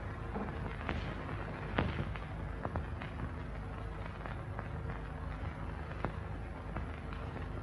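Surface noise of an old film soundtrack: a steady hiss and low hum with scattered, irregular clicks and pops, one sharper pop about two seconds in.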